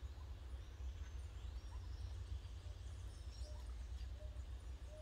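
Outdoor ambience: a steady low rumble with faint bird chirps; in the second half a short call repeats about every 0.7 seconds.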